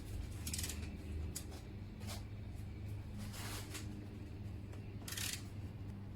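Hand tools and metal hardware handled while fitting the bolts of a car's pitch stop mount: about five short scraping, clinking sounds spread out over a steady low hum.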